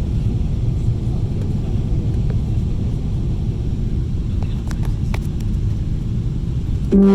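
Steady low rumble of a Boeing 777 airliner's cabin during the descent, from engine and airflow noise. Near the end, a loud steady tone with several pitches starts suddenly.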